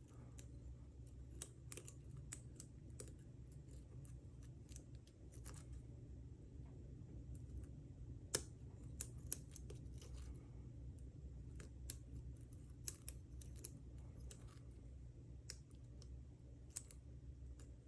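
Lock pick and tension wrench working the pins of a Trimax round-body padlock's pin-tumbler cylinder: light, irregular metallic clicks and ticks, the sharpest about halfway through, over a faint steady low hum.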